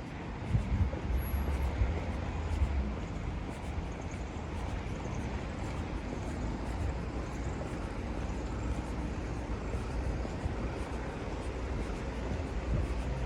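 City street ambience on wet asphalt: road traffic passing, loudest in the first few seconds, with soft footsteps.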